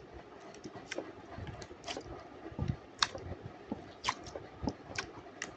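Slime being squished and stretched by hand, giving irregular sticky clicks and pops about once or twice a second.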